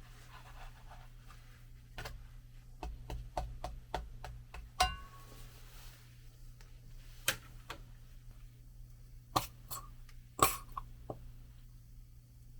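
Scattered light clicks and knocks of small objects being handled, over a steady low hum. About five seconds in there is a clink that rings briefly, and the loudest knocks come near the end.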